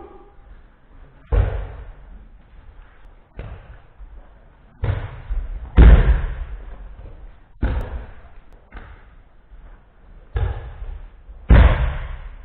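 Bodies thrown onto martial-arts floor mats in a run of Ju Jutsu throws: about eight heavy thuds of breakfalls, each echoing in the hall, the loudest about six seconds in and near the end.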